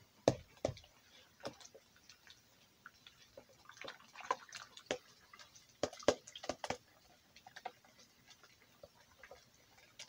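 A whisk beating milk, eggs and mashed banana in a plastic bowl: irregular clicks and taps of the whisk against the bowl with a wet sloshing.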